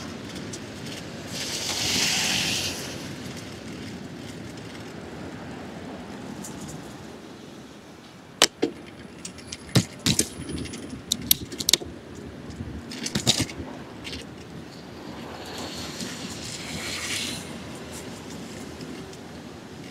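Riding a bicycle on city pavement: a steady rush of tyre and wind noise, with a run of sharp knocks and rattles from the bike and its camera mount jolting over bumps, from about eight to fourteen seconds in. Two stretches of louder hiss come near the start and again near the end.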